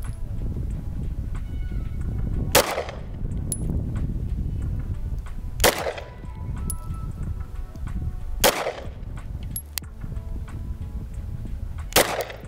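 Four single shots from a Glock 19 Gen 5 9mm pistol, fired slowly about three seconds apart, each a sharp crack with a short echo trailing after it. A steady low background rumble runs underneath.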